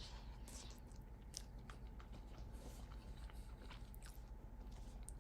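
A person chewing a mouthful of soft microwave mac and cheese noodles, with faint, scattered small wet mouth clicks.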